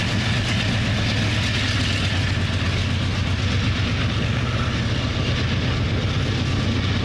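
BNSF diesel-electric locomotives pulling a container train out from a stop and passing close by: a steady low engine drone with rail and wheel noise.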